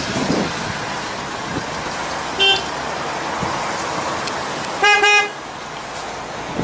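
Car horn sounding: a short toot about two and a half seconds in, then a longer, louder double toot about two seconds later, over steady vehicle noise.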